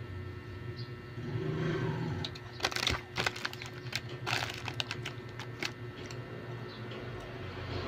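Fita crackers crunching and crackling as they are bitten and chewed, with two clusters of sharp crisp clicks in the middle, over a low steady hum.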